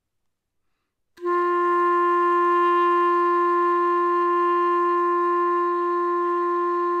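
Clarinet, put together with only mouthpiece, barrel and upper joint, playing a long, steady open G with no fingers down, starting about a second in and held at an even pitch and volume.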